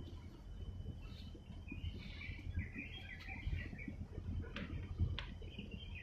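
Birds chirping and twittering, with a burst of quick notes about two seconds in and two sharp falling whistles near the end, over a steady low rumble.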